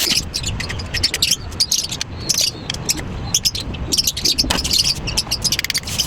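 A rapid, irregular run of small clicks and scrapes, like light objects being handled.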